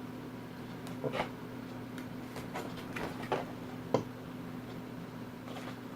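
Light, irregular clicks and taps of cardboard game pieces and cards being handled and lifted out of a game box, the sharpest tap about four seconds in, over a steady low hum.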